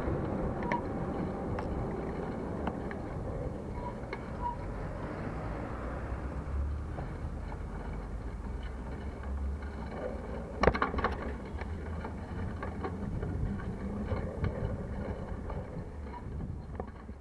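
Steady low rumble of riding a bicycle through city traffic, picked up by a camera mounted on the bike, with a brief sharp clatter about ten and a half seconds in.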